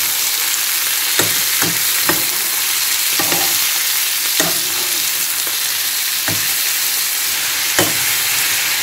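Clam meat frying in oil with onion and carrot in a frying pan: a steady sizzling hiss, with a metal spoon stirring and knocking against the pan several times.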